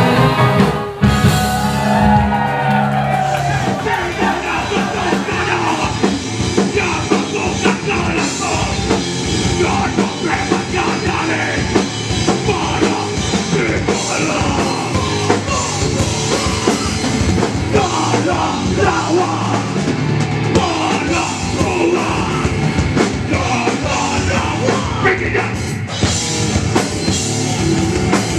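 A rock band playing live: electric guitar, bass and a drum kit, with a singer.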